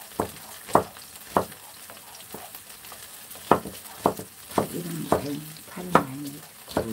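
Chef's knife chopping green onion on a wooden cutting board, sharp strikes at an irregular pace of about one a second, over the steady sizzle of vegetables frying in a pan being stirred with a wooden spatula.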